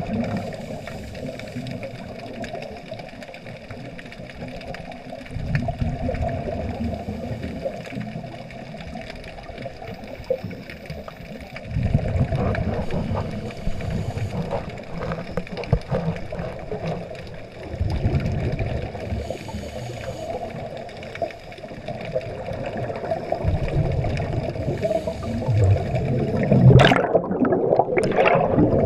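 A scuba diver's exhaled bubbles gurgling out of the regulator, recorded underwater: a deep bubbling surge about every six seconds over a steady hiss. The loudest and brightest burst comes near the end, as the bubbles stream past the camera.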